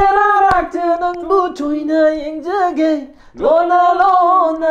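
A man singing unaccompanied in a high voice, holding long, slowly wavering notes; the line breaks off about three seconds in and starts again with a rising swoop.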